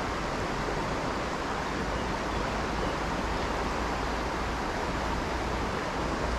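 Steady rush of river water, an even noise with no breaks.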